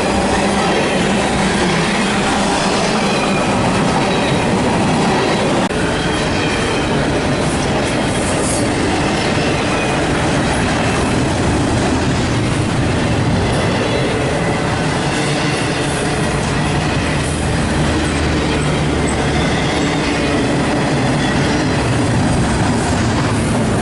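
A train passing close by: steady, loud noise of steel wheels running over the rails, carrying on without a break.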